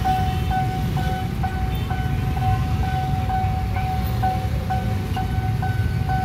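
Railroad crossing warning bell ringing, one high tone repeating about twice a second, over the low rumble of motorcycle and car engines waiting at the closed crossing.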